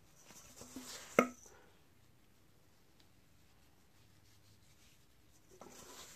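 Dry seasoning rub being shaken from a stainless steel bowl and rubbed onto a raw brisket: a soft hissing scatter, then one sharp metallic knock with a short ring about a second in. A soft rustle of gloved fingers in the seasoning follows near the end.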